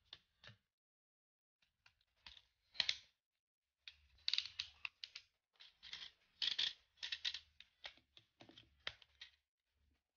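Hard plastic parts of a Tobot transforming robot toy clicking and snapping as they are swung and locked into place by hand. The clicks come in short irregular runs, scattered at first and thicker after about four seconds.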